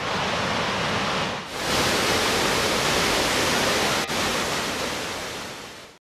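Muradiye Waterfall in high spring flow: a steady, loud rush of falling water. It dips briefly a little over a second in and fades out at the very end.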